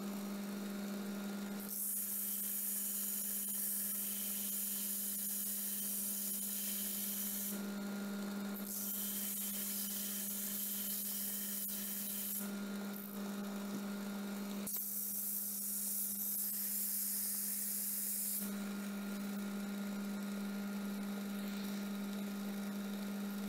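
Bench belt sander running with a steady motor hum while a steel knife blade is ground against its abrasive belt in three passes of a few seconds each, each pass a harsh hiss that starts and stops.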